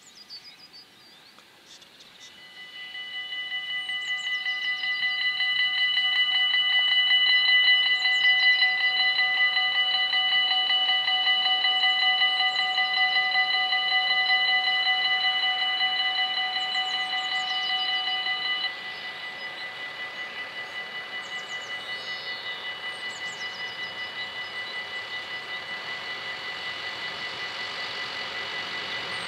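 Dutch level-crossing bells start ringing about two seconds in: a fast, steady, many-toned electronic ringing that grows loud while the barriers come down. About two-thirds of the way through, with the barriers down, some of the bells stop and the ringing goes on quieter. Near the end a rising rush of the approaching freight train begins.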